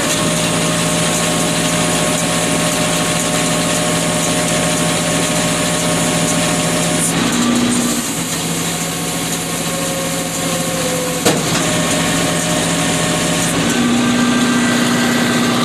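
Tractor engine running steadily, its note shifting a little about halfway through and again near the end; a single sharp click about two-thirds of the way in.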